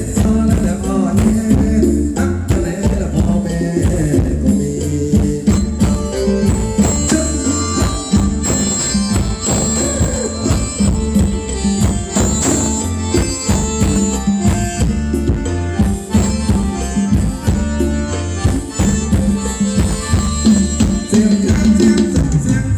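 Thai luk thung ramwong dance music from a live band, played loud, with a steady drum beat, tambourine-like percussion and singing.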